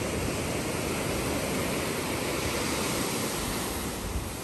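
Sea surf washing onto a sandy beach: a steady rushing noise of breaking waves.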